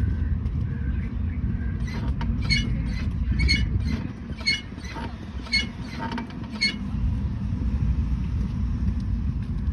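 Rear drum brake of a 2019 Lada Vesta creaking as the brake pedal is worked: a series of sharp creaks about once a second over a low rumble, recorded with the phone resting on the wheel. A known Vesta fault that a mechanic puts down to the rear brake shoes, which need replacing.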